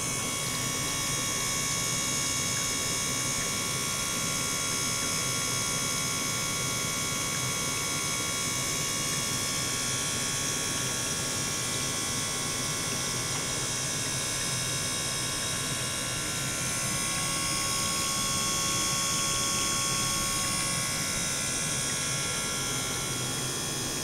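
Small gear pump running steadily, circulating water through a stainless steel bowl, with a constant hiss and several high-pitched whining tones over a low hum.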